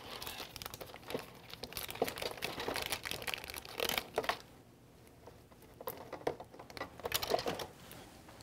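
Plastic wrapping crinkling and rustling as gloved hands handle items from a dental die-material kit. It comes in two spells with a quieter pause of about a second and a half in the middle.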